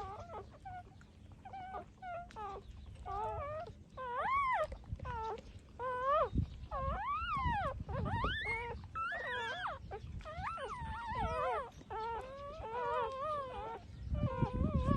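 Six-day-old puppies whining and squealing in a string of short, high-pitched cries that rise and fall, louder from about four seconds in.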